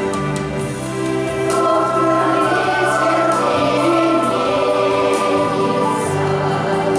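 A group of voices singing together in chorus over instrumental accompaniment, with held notes and a steady bass line.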